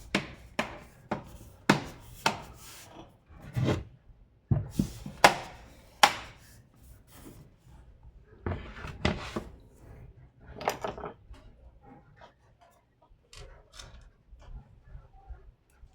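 Plastic parts of a laptop being handled during repair work: a series of knocks, clicks and short scrapes that become fewer and fainter after about eleven seconds.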